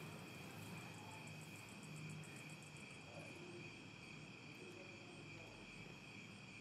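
Faint, steady chirring of crickets, several high tones held throughout.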